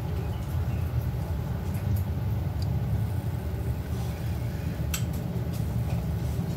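A steady low rumble with a few faint clicks, the clearest about five seconds in.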